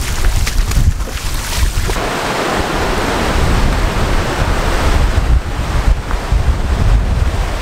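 Ocean surf rushing into a sea cave and washing over rocks, with heavy wind buffeting on the microphone. About two seconds in, the rush of water swells and stays loud.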